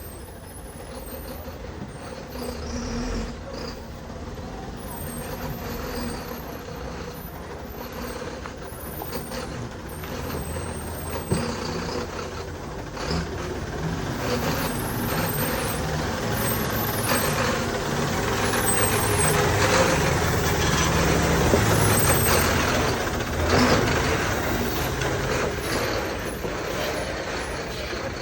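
Motor vehicle driving on a rough road: a low engine rumble with road and tyre noise that builds up and then eases off near the end, with a few short knocks along the way.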